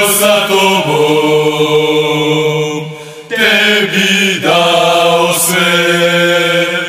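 A group of voices singing a Red Star Belgrade supporters' chant in long held notes, with a short break about three seconds in.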